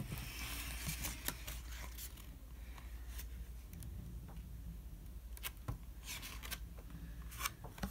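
Faint rustling and soft taps of a hardcover book's paper pages being turned and handled, over a low steady hum.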